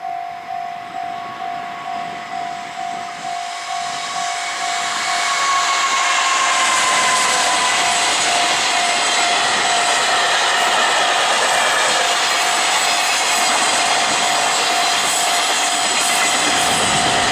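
Japanese level-crossing warning bell ringing at about two and a half strokes a second. From about four seconds in, a train comes through the crossing with a loud, steady rush of wheel and rail noise that drowns out the bell.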